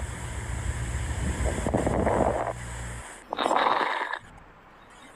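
Breath sounds heard through a stethoscope: two breaths, each about a second long, the first over a low steady rumble that stops about three seconds in, where a different recording begins.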